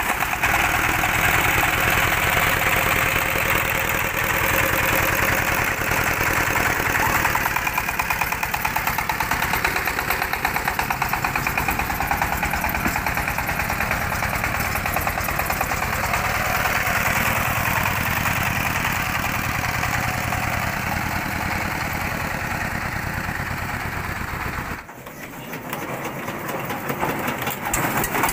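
Single-cylinder horizontal diesel engine running with a fast, even chugging. It drops away briefly near the end, then an engine chugs on again.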